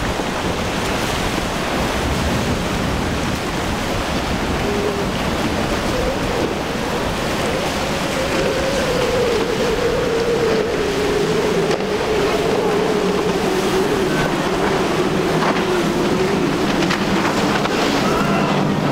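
Triple Mercury 350 hp outboards on a Conch center-console boat running at speed through choppy water. The engine drone sinks slowly in pitch in the second half as the boat passes. Heavy wind on the microphone and breaking surf run throughout.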